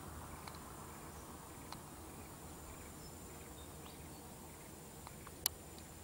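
Faint outdoor ambience with a steady high-pitched insect drone, a few soft ticks, and one sharp click about five and a half seconds in.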